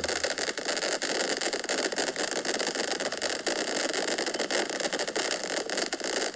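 A firework on the ground giving off a dense, continuous crackle over a hiss, like a crackling fountain.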